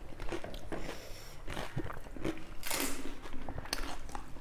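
Pani puri, the crisp hollow fried shells, being bitten and chewed close to the microphone: scattered short crunches and mouth noises, with one louder rushing burst about three seconds in.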